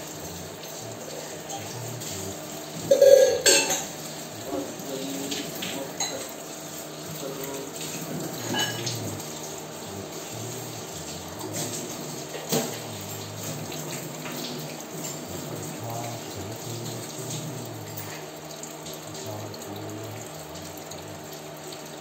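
Tap water running steadily into a ceramic washbasin while a green parakeet bathes in the stream, splashing as it flaps its wings. A loud, sudden sound about three seconds in and a few sharp clicks stand out over the running water.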